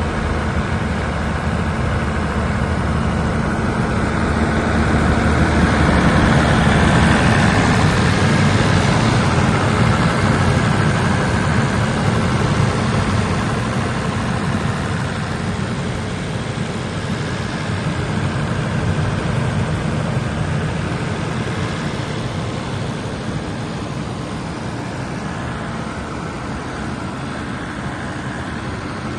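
90 kVA Perkins diesel generator engine running steadily, a constant low drone that grows louder for several seconds near the middle and then settles.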